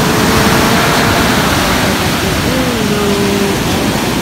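Waves breaking on a sandy beach: a steady, loud rush of surf, with wind on the microphone adding to the noise.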